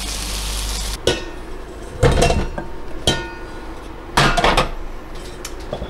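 A steady hiss from the stove cuts off about a second in. Then come four clanks against a stainless steel bowl holding boiled potatoes, about a second apart, each one ringing metallically as the potatoes are handled for mashing.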